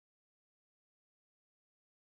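Near silence, broken by a single brief, faint high-pitched blip about one and a half seconds in.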